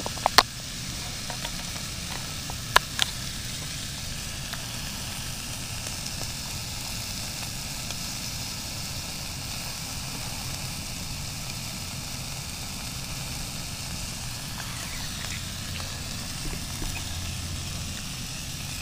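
Sausages sizzling steadily in a frying pan on a camp cookstove, with a few sharp clicks in the first three seconds.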